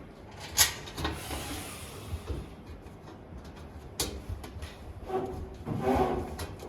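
Parts of a metal DVR rack being handled during assembly: a few sharp clicks and knocks, then a rough sliding scrape about five seconds in.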